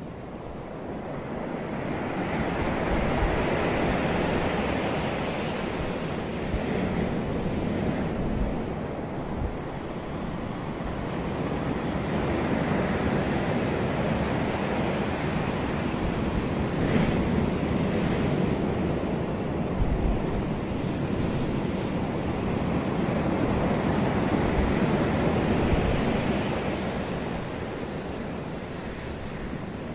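Ocean waves washing onto a shore, a continuous rushing surf that swells and fades every several seconds.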